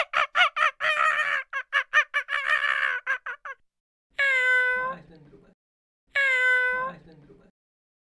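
Animal calls: a fast string of short yelping calls, about six a second, that stops about three and a half seconds in, then two meow-like calls about two seconds apart, each one identical.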